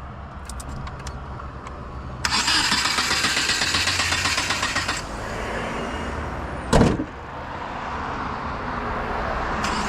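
2010 Subaru WRX's turbocharged flat-four engine running under low load as the car is reversed. About two seconds in a harsh hissing noise starts and lasts nearly three seconds, and a sharp clunk comes near the seven-second mark.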